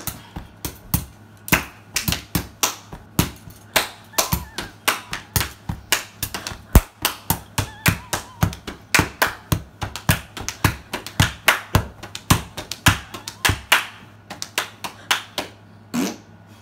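Hand percussion keeping a beat: a steady run of sharp taps, about three a second, with a short break near the end.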